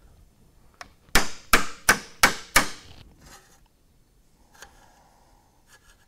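Five quick hammer blows on a steel sheet-metal strip clamped in a bench vise, forming a patch panel into a curve. Each strike is sharp, with a short metallic ring.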